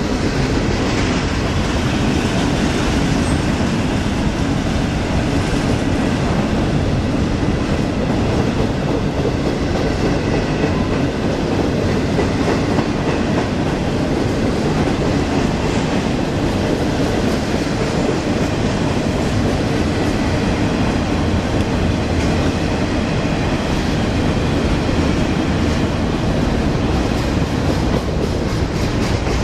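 Freight train's loaded container well cars rolling past: a steady rumble of steel wheels on the rails.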